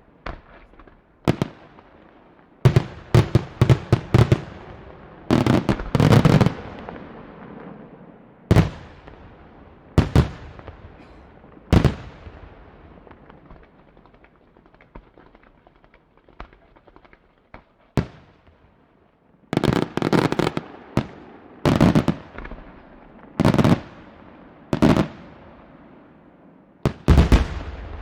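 Firework shells bursting in a series of sharp bangs, several coming in quick clusters of reports. The bangs thin out to a few isolated ones for about six seconds in the middle, then pick up again in rapid clusters.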